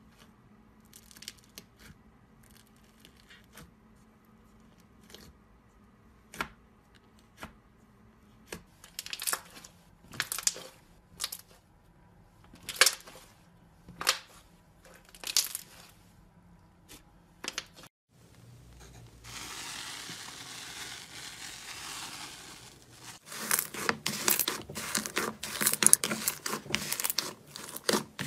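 Slime being poked, squeezed, stretched and torn by hand, giving sharp crackling pops and tearing sounds. The pops come singly, about one a second, for most of the time; after a break a steady hiss runs for a few seconds, and near the end the crackling turns dense and rapid.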